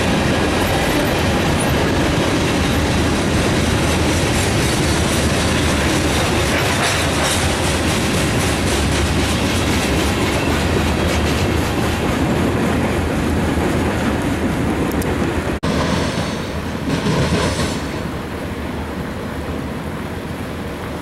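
Freight cars of a mixed freight train rolling past at track side: a steady rumble of wheels on rail, with wheels clicking over the rail joints. The sound cuts off sharply about two-thirds of the way in and gives way to a quieter steady background.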